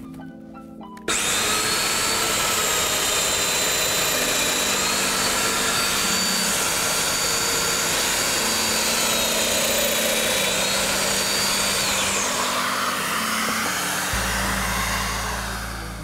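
Festool DF 500 Domino joiner motor starting abruptly and running steadily with a high whine while plunge-cutting 28 mm-deep mortises with an 8 mm cutter into the edge of a shelf panel, air drawn through its attached dust-extractor hose. The whine drops away and the noise winds down near the end.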